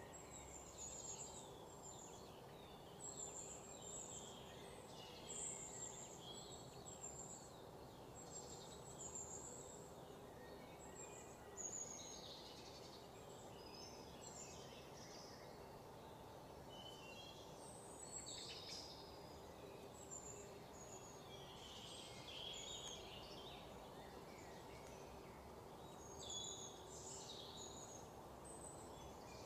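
Faint birdsong: many short, high chirps and twitters throughout, over a steady low hum.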